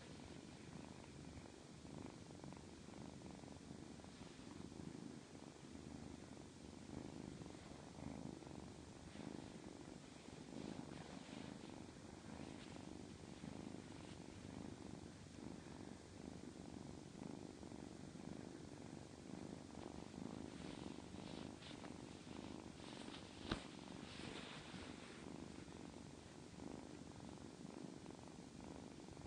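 Domestic cat purring steadily at close range as it is petted, a fast even rumble. Late on there is some light rustling and one sharp click.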